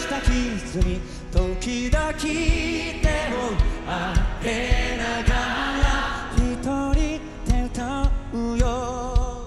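Live rock band performance with a large choir of young voices singing along over a steady drum beat. Near the end a solo male lead voice carries the line.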